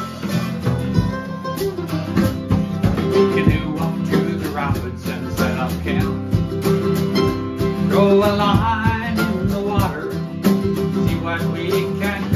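Acoustic country-bluegrass band playing: strummed acoustic guitar, picked mandolin and a light drum kit keeping a steady beat.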